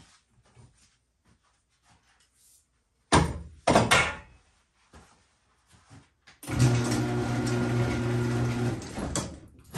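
Two loud clatters about three seconds in. Then an electric motor starts with a steady low hum, runs for about two seconds, cuts off, and a motor hum starts again at the very end.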